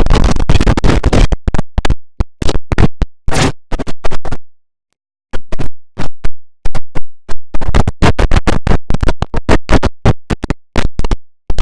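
IBM OS/2 Warp 3 shutdown sound, heavily processed with stacked audio effects, chopped into rapid stuttering fragments like record scratching. It cuts to silence for about half a second partway through, then the stutter resumes.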